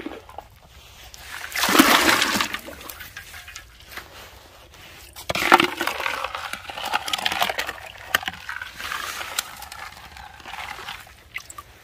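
A plastic dipper scooping water through a hole in the ice of a frozen water basin: splashing and pouring water in several bursts, the loudest about two seconds in and again about five and a half seconds in.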